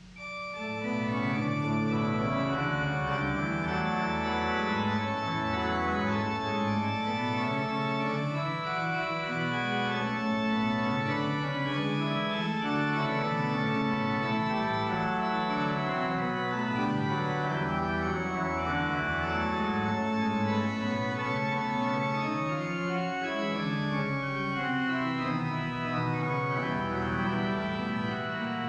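Forster & Andrews pipe organ being played, starting abruptly: full chords of many held notes with a bass line moving beneath them.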